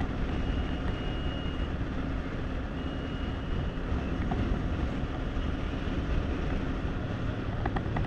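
Yamaha R15 V3 motorcycle riding at a steady speed: its 155 cc single-cylinder engine running under a steady rush of wind and road noise. A faint thin high tone sounds briefly twice in the first four seconds.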